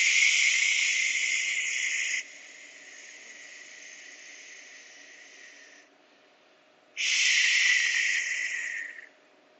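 Forceful breath blown out through the mouth as a long hissing exhale close to the microphone, heard over a video call; it drops away after about two seconds and trails off. A second hissing breath of about two seconds comes about seven seconds in.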